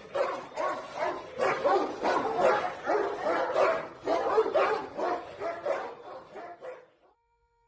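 Kangal shepherd dog barking over and over, about two to three barks a second, stopping about seven seconds in.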